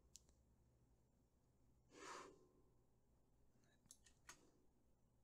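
Near silence: room tone, with one faint breath about two seconds in and a few faint clicks, as of a computer mouse.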